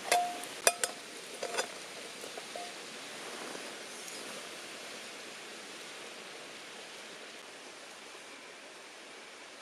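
Several sharp metallic clinks in the first few seconds, one ringing briefly, over a steady soft rushing noise that continues after they stop.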